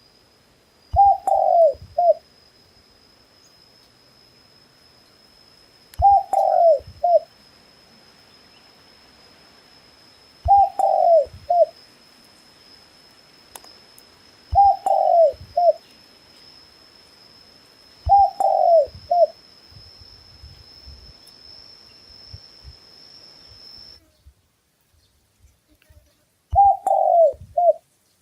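Dove cooing: six repeated phrases, each a falling coo followed by a short clipped note, about every four seconds, with a longer pause before the last. A faint steady high-pitched whine runs under the first calls and stops near the end.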